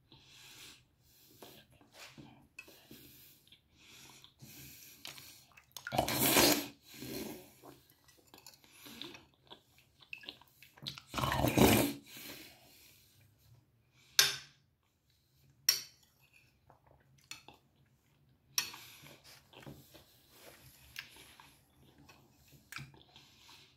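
A metal spoon scraping and clinking against a dish during a meal. There are two louder scrapes about a second long, then a few single sharp clinks, between softer rustling.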